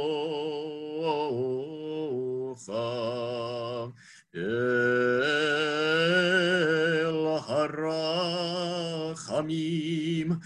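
A male cantor sings Hebrew High Holiday liturgy solo and unaccompanied, in a chanted style with long held notes. He takes a short breath about four seconds in, then holds a long note with vibrato.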